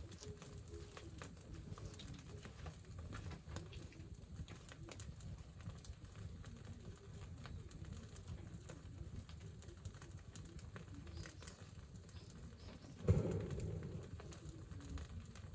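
Rural outdoor ambience: a steady low rumble with scattered faint ticks and short, low repeated notes. One thump about thirteen seconds in is the loudest sound.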